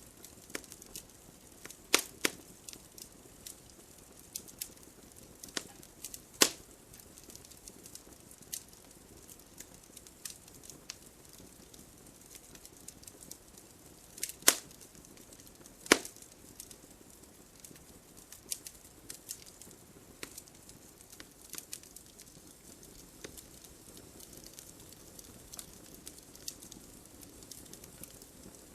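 Campfire crackling: burning wood popping and snapping at irregular intervals over a soft hiss, with a few louder sharp cracks about 2, 6.5, 14.5 and 16 seconds in.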